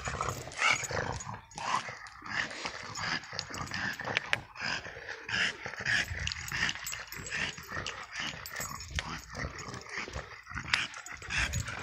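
French bulldog breathing noisily as it walks on a leash: short, irregular bursts, several a second.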